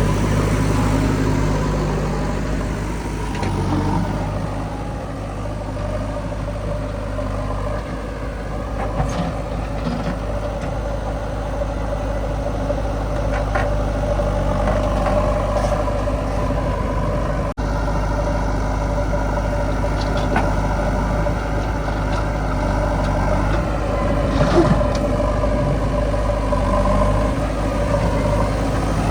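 Heavy diesel machinery engine running steadily, its pitch shifting now and then as it is worked, with a brief break about halfway through.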